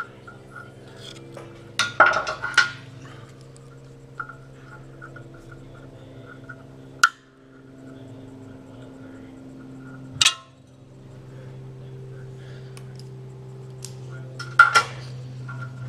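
Metal hand tools, a pick and locking pliers, clinking and scraping against the bandsaw's metal body and nameplate. There is a cluster of sharp clinks about two seconds in, two single clinks in the middle and another cluster near the end, over a steady low hum.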